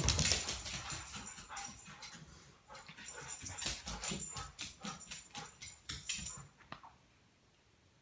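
Pet dogs barking and whining excitedly as they wait for their owner to come home. It is a quick run of sharp sounds that stops about seven seconds in.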